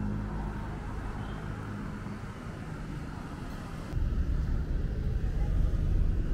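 Street ambience of road traffic, a low steady rumble that gets louder about four seconds in.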